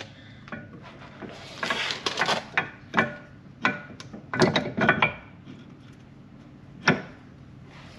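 A new PowerStop Z26 ceramic brake pad being worked into a Dodge Charger Hellcat's brake caliper: a scrape about two seconds in, then a run of sharp clicks and knocks of hard parts as the pad is pushed into place, the last one near the end.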